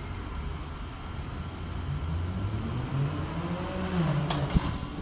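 Outdoor air-conditioner condensing units running with a steady low hum. From about two seconds in, a pitched whir rises in as a unit starts up. A sharp click comes near the end.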